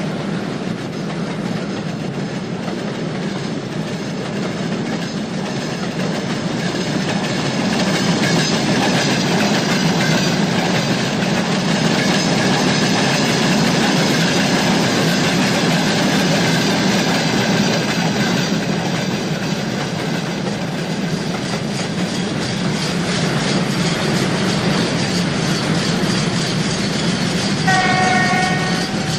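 A train running through a station, a continuous rumble and clatter of wheels on the rails. Near the end comes a short horn blast.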